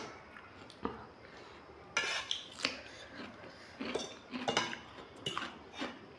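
Metal forks clinking and scraping on ceramic plates while ramen noodles are gathered up: a scattering of short, separate clicks and scrapes.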